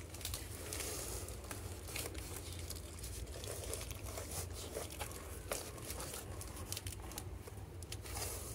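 Paper and cardboard rustling and crinkling as they are handled, with scattered small clicks and knocks over a steady low hum.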